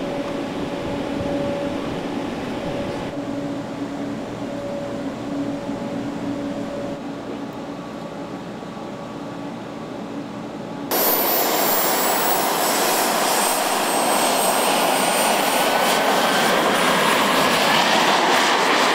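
A steady hum for about the first eleven seconds. Then it cuts suddenly to the louder running of the AirSTAR subscale transport model's miniature jet turbine engines, with a whine that rises in pitch as the model runs down the runway.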